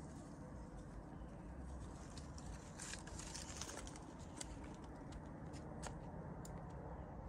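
Faint forest ambience with a low steady rumble, scattered small clicks and ticks, and a bird calling faintly now and then.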